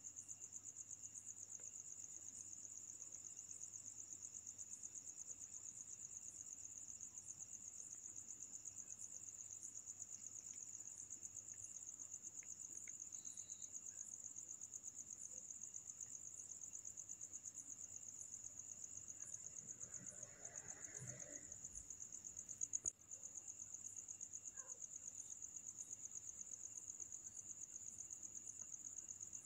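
Faint, steady, high-pitched insect trill pulsing about twice a second. A brief low noise and a single sharp click come about three quarters of the way through.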